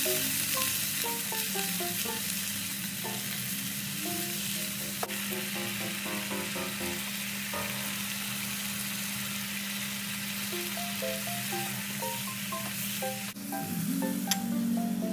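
A stir-fry sizzling steadily in a hot pan, with a light background melody of short notes. About 13 s in, the sizzle cuts off and the music comes forward.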